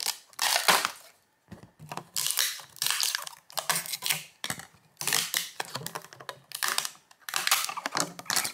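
Packaging of a boxed figurine being handled, in about eight short noisy bursts of rubbing and rustling.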